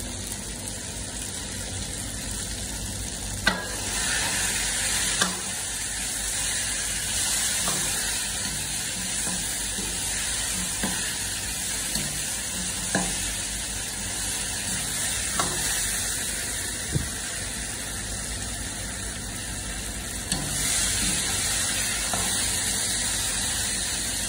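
Mutton and potatoes sizzling in a karahi while a steel ladle stirs them, scraping and knocking against the pan every couple of seconds over the steady frying hiss.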